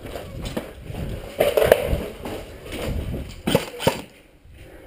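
Footsteps crunching over dirt and debris with gear and clothing rustling close to the microphone, broken by irregular knocks, two sharp ones near the end.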